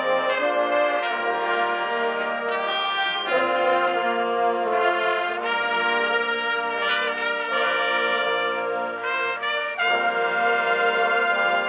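High school marching band's brass playing slow, held chords that change every second or two.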